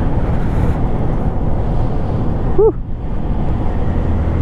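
Motorcycle riding with wind buffeting the microphone over the steady running of the engine. About two-thirds of the way through, a short tone rises and falls.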